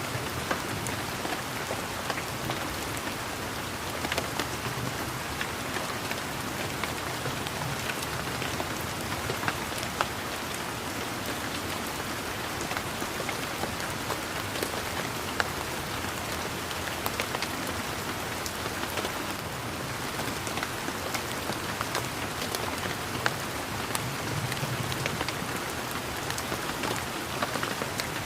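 Steady rain pattering, with single louder raindrop ticks scattered through it.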